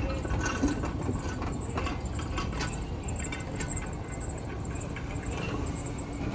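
A train running on the rails: a steady low rumble with scattered clicks and clanks.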